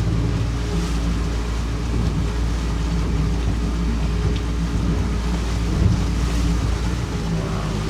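Small fishing boat's engine running steadily at slow trolling speed in choppy water, with wind and sea noise and a single thump about six seconds in.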